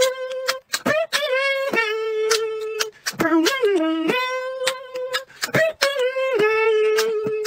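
Vocal beatboxing: one voice holds and bends sung notes, broken by sharp percussive mouth clicks and pops.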